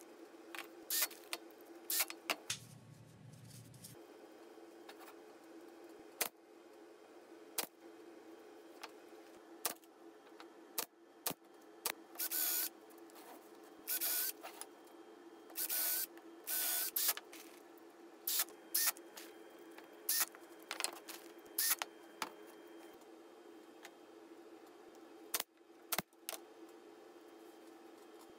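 Bosch cordless drill with a countersink bit run in short bursts, about half a second to a second each, cutting countersinks into plywood. Sharp clicks and knocks come between the bursts as wooden pieces are handled on a steel worktable, over a steady low hum.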